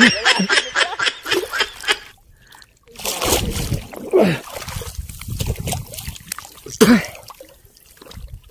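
Sea water splashing and sloshing around a person wading chest-deep while fishing, with a louder splash about three seconds in and another near the end. A man laughs in the first two seconds.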